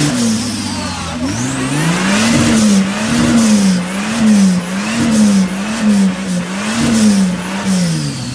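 Jeep Willys with a turbocharged Falcon 4.9 engine revving hard while driving through deep mud, the revs rising and falling about once a second. The tyres churn and spray mud.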